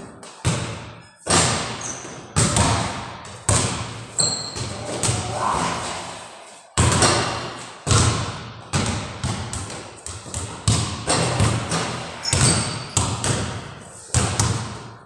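Basketballs bouncing on a hard gym floor as players dribble and shoot: irregular sharp thuds, often overlapping, each trailing off in an echo from the bare block walls.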